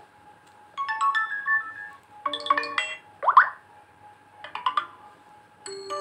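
Built-in notification tones of a Vivo Y12 smartphone previewed one after another through its speaker: about five short chiming jingles of a few notes each, with gaps between them. One of them is a quick rising glide.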